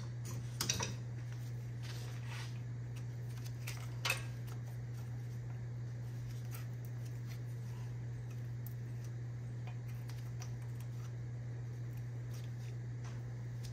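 A few light metallic clicks and ticks as pliers work a cotter pin out of the upper ball-joint castle nut on a truck's steering knuckle. A steady low hum runs underneath throughout.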